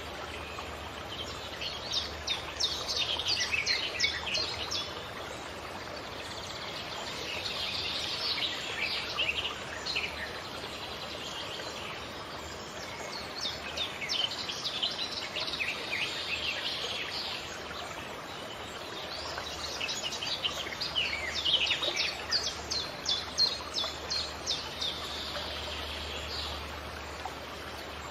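Birdsong: bouts of quick high chirps and trills, four in all, each lasting a few seconds, over a steady background hiss.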